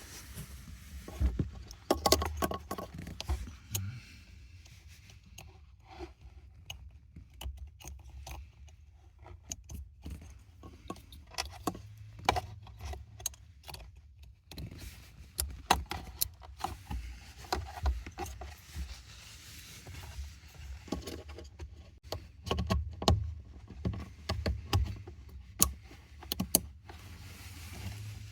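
Plastic wiring-harness connectors for a throttle pedal being handled and plugged together under a truck's dashboard: scattered clicks, taps and light rattling of plugs and wires, over a low steady hum.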